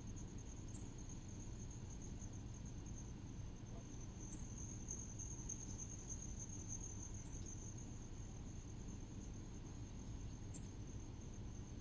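Faint, steady high-pitched trilling of insects at dusk, with four brief higher chirps a few seconds apart.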